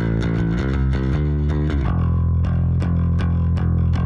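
Electric bass guitar playing a line of plucked notes with sharp attacks, played back through an FMR Audio analog hardware compressor.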